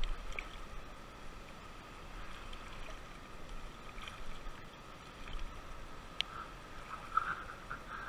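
Shallow river water lapping and gurgling against the rocks at the bank, more bubbly in the last couple of seconds, with a couple of light clicks.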